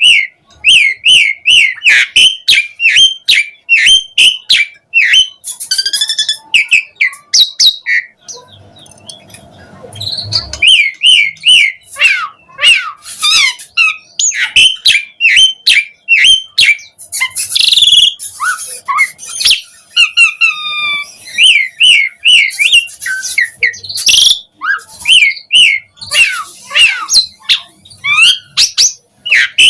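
Asian pied starling (jalak suren) singing in full voice: fast runs of short, rising whistled chirps, several a second, mixed with harsh clicks and varied phrases, with a short lull about a third of the way through.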